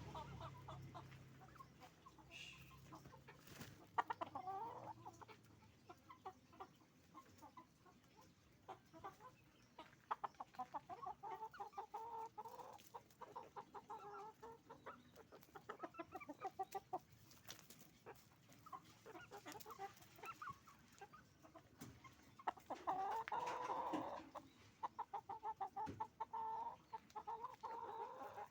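A flock of farm chickens clucking: many short, overlapping clucks, with a louder, longer call late on.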